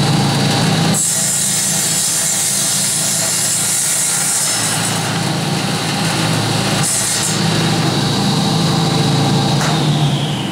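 Saw of a WJQ-1 precise cutting machine running with a steady motor hum and high whine, its blade cutting through a bundle of wooden skewer sticks from about a second in for four seconds, then again briefly near 7 s. Near the end the whine starts to drop in pitch as the saw winds down.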